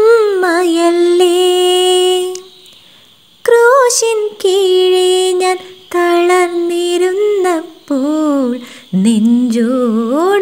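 A woman's voice singing unaccompanied in slow phrases of long held notes, with a short pause about two and a half seconds in; the closing phrases drop lower and then glide up.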